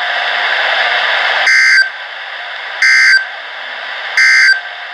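Three short electronic data bursts from a NOAA Weather Radio broadcast, about a second and a half apart, over steady radio static. They are the SAME end-of-message code that closes a severe thunderstorm warning.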